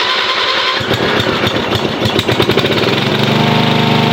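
Lawn tractor's 11-horsepower engine being started: the starter cranks it, it fires in rapid pulses about a second in, and settles into a steady run about three seconds in.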